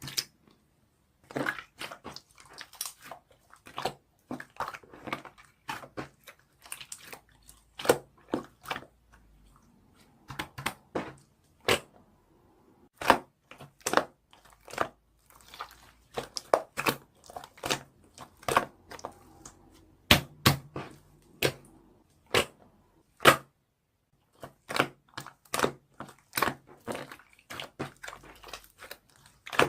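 Close-up crunching and crinkling: many sharp, irregular crackles a few per second, with brief pauses.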